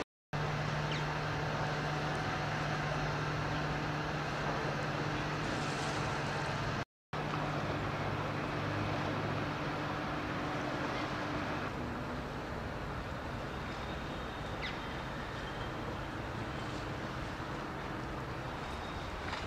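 Steady low mechanical hum over a wash of noise, dropping out for an instant twice; the hum thins out about two-thirds of the way through.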